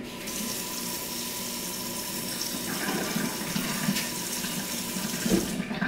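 Kitchen faucet turned on just after the start, running into a stainless steel sink with hands working under the stream, then shut off near the end.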